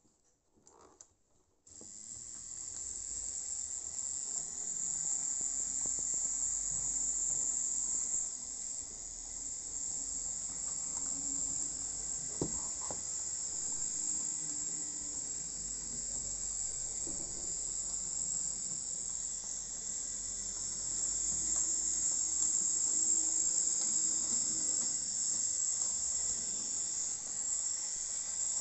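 Piko BR64 model locomotive's small three-pole electric motor and gear drive running steadily as it reverses: a high hiss-like whir that starts about two seconds in, over a faint low hum.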